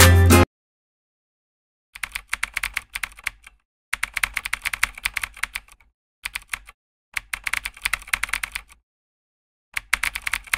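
Computer keyboard typing sound effect: rapid keystrokes in bursts of one to two seconds with short pauses between, matching the text typed out on screen. Guitar music cuts off about half a second in, and there is silence before the typing starts.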